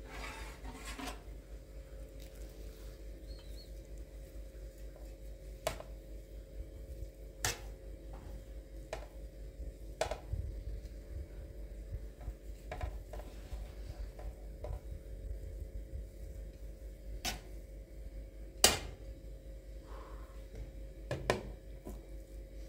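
Scattered sharp clicks and knocks, a few seconds apart, over a steady low hum. The loudest knock comes about three-quarters of the way through.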